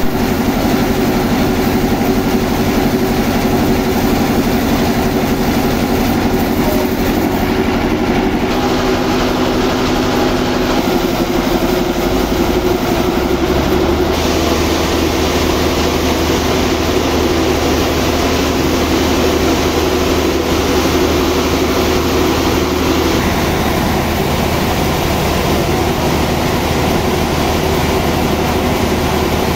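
Sawmill machinery running steadily with a heavy, low engine hum, its tone shifting a few times.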